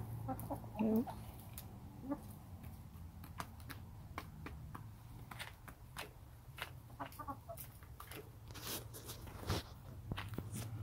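Backyard hens clucking: one short cluck about a second in and a few fainter clucks around two-thirds of the way through, over scattered sharp clicks of beaks pecking at feed on the dirt floor.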